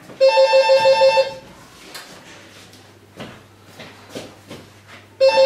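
Electronic telephone ringing with a fast warbling trill. Two rings of about a second each, the second starting near the end, with soft rustling and knocks between them.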